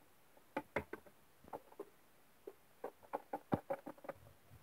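Small plastic toy pet figurines tapped and hopped by hand along a wooden surface: a dozen or so irregular light taps and clicks, the loudest about three and a half seconds in.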